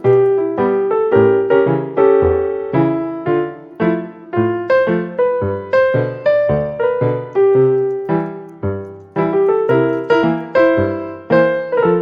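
Background music: a solo piano-like keyboard tune, its notes struck at an even pace and ringing as they fade.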